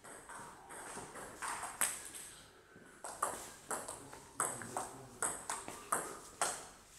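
Table tennis rally: the celluloid-type plastic ball clicking off the rubber-faced bats and bouncing on the table. Two single clicks come first, then from about three seconds in a quick regular run of about two to three hits a second.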